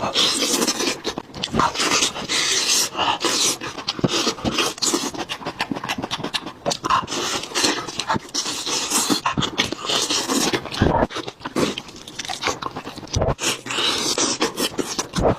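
Close-miked chewing, gnawing and smacking on beef ribs: a dense, continuous run of wet clicks and small crunches.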